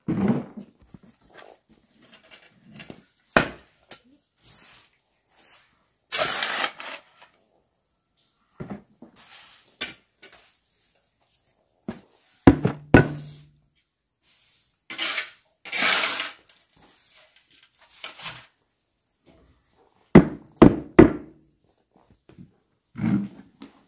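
Irregular knocks and thuds, some in quick pairs, with a few longer scraping or rustling bursts between them.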